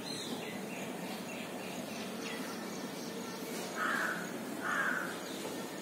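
Chalk scraping on a blackboard in two short scratchy strokes, about four seconds in and again just under a second later, over steady room noise.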